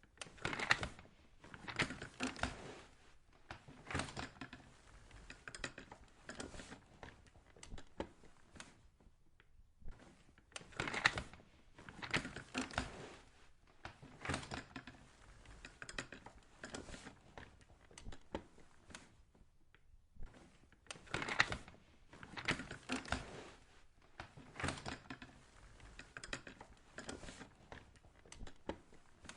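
An office chair being moved, creaking, rattling and knocking in three bursts of about nine seconds each, with short pauses between them.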